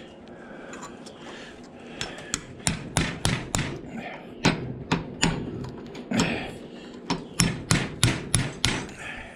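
Sharp metal-on-metal clanks at a cast-iron bench vise clamping a small motor, about twenty in quick irregular runs beginning about two seconds in.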